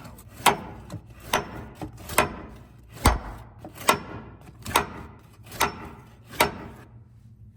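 Hammer tapping on a seized upper control arm bolt to drive it out: eight even, light strikes of metal on metal, a little under one a second, stopping near the end. The bolt is rusted in and has not yet come free.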